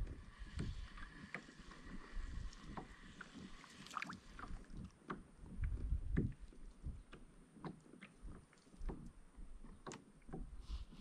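A fishing kayak on calm water: scattered light knocks and clicks from the hull and gear, with soft water sounds and a low rumble.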